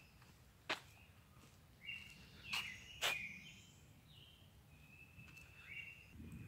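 Birds calling outdoors in short, high chirps, with two sharp clicks, one about a second in and a louder one about three seconds in.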